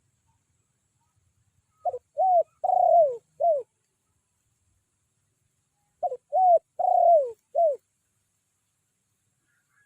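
Spotted dove (tekukur) decoy cooing its four-note territorial call twice, close and loud, the third note longest and falling at its end; a challenge call to draw rival doves in.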